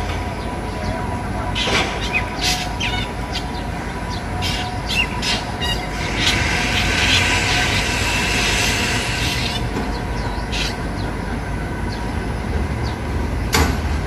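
Wild drongo calling from a tree: short, sharp calls scattered through, with a denser run of chatter from about six to nine seconds in, over a steady low rumble.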